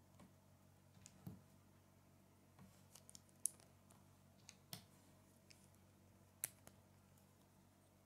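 Small plastic Lego pieces being handled and pressed together, giving a dozen or so light, irregular clicks, the two sharpest about three and a half and six and a half seconds in.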